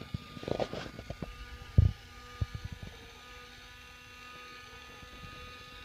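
Small electric gear motor of an automatic chicken-door opener running with a steady hum as it unreels its string line. Handling knocks and rustles come in the first few seconds, with one loud thump about two seconds in.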